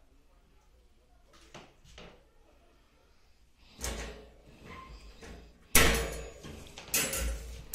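Metal wire dog crate door being unlatched and opened: a rattle about halfway through, then a sharp metal clank, the loudest sound, followed by more rattling.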